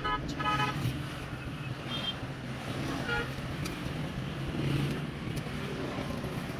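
Street traffic going by with a steady low engine rumble, and two short vehicle-horn beeps right at the start.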